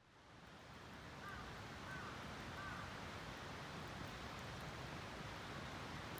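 Faint, steady outdoor background hiss, with three short faint chirps from a bird between about one and three seconds in.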